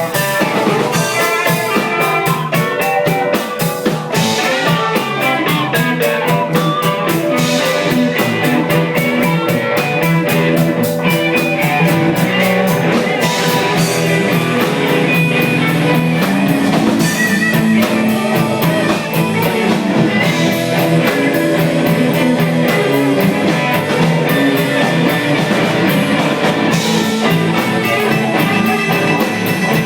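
Live blues band playing: electric guitar over a drum kit with a steady beat.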